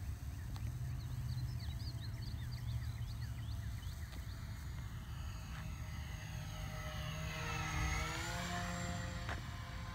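Avios C-130 Hercules RC model's four electric motors and propellers humming as it makes a low pass, growing louder and dropping in pitch as it goes by near the end. A steady low wind rumble sits under it.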